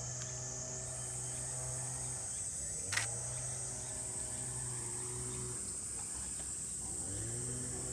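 Insects shrilling steadily at a high pitch, over a low hum that cuts out twice and comes back, with a single sharp click about three seconds in.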